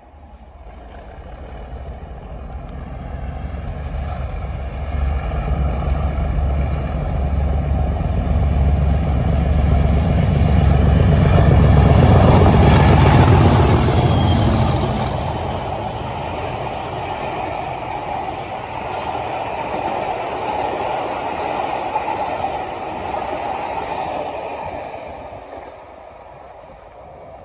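Pair of Class 37 diesel locomotives, English Electric V12 engines, thrashing under full power as they pass. The heavy low engine sound builds to its loudest about halfway through, then gives way to the steady rolling of the coaches, which fades as the train moves away.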